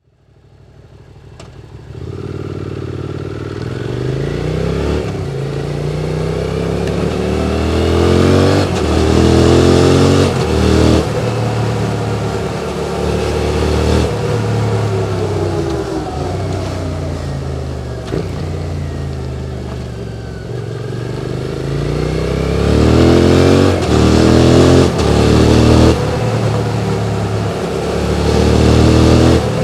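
QJ Motors SVT650X motorcycle with an Arrow Racetech slip-on exhaust, ridden in city traffic. The engine note climbs in pitch and breaks off repeatedly as the bike shifts up through the gears, then sinks as it eases off and slows midway. It pulls hard again through several quick shifts near the end.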